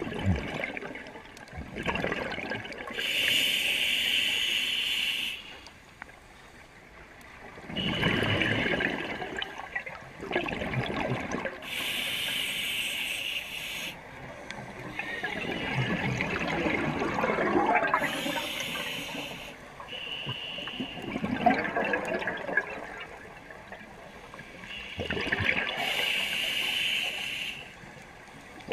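Scuba diver breathing through a regulator. About four slow breaths, each a steady hiss of air through the regulator on the inhale, followed by a longer gurgle of exhaled bubbles.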